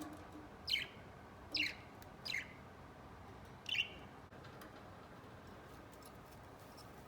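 Budgerigar giving four short chirps, each sliding downward in pitch, spaced less than a second apart.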